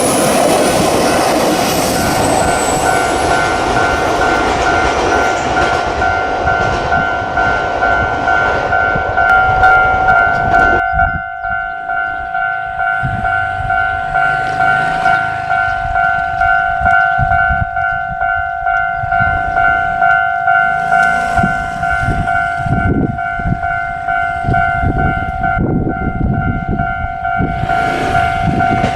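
A Japanese level-crossing warning bell rings steadily while a JR Hanwa Line electric train passes. The loud rush of the train drops about eleven seconds in, leaving the bell over a regular clatter of wheels on rail joints.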